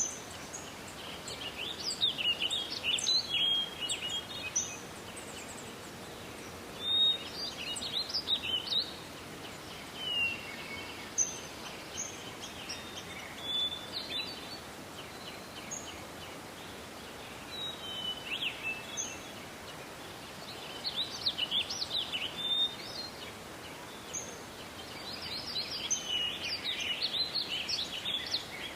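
Songbirds singing in short phrases of quick chirps and trills every few seconds, over a steady background hiss of forest ambience.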